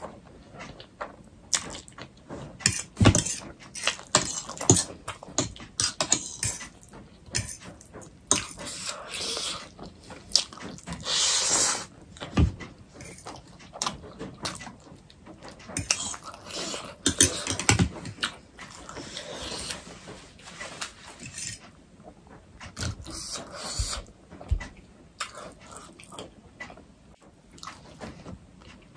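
Close-up eating sounds of black bean noodles: wet chewing and slurping with many sharp mouth clicks, and a metal fork tapping and scraping on the plate. A longer, louder slurp comes about eleven seconds in.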